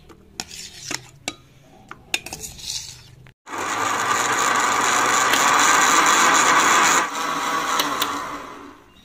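A few clinks and scrapes of a steel ladle against a glass blender jar, then about three and a half seconds in an electric blender runs steadily, blending peaches with milk. Near seven seconds it drops off and winds down to a stop.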